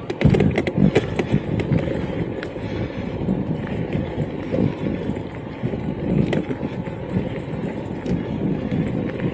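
Electric mountain bike riding over rough ground: a steady rumble of the tyres with frequent rattling clicks and knocks from the bike, thickest in the first couple of seconds.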